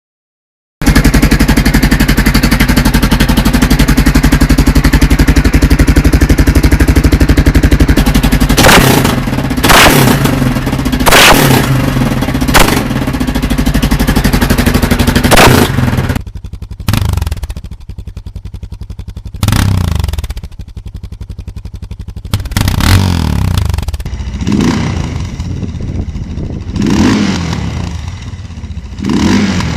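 Suzuki DR650's single-cylinder engine through an aftermarket exhaust, idling loudly, then revved sharply several times. About halfway through the sound drops to a quieter engine given more short throttle blips, each rising and falling in pitch.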